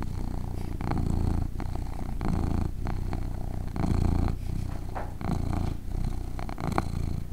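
Domestic cat purring close up: a steady low rumble that swells and eases with each breath, about every second and a half, with a few faint clicks.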